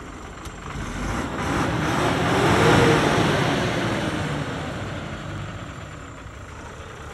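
A vehicle engine revving up to a peak about three seconds in, then easing back down, with a broad rushing noise over it.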